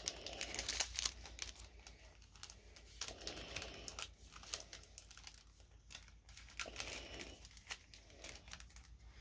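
Foil wrapper of a Pokémon TCG booster pack crinkling and tearing as it is opened. A dense run of crackles comes in the first second and a half, then scattered crinkles.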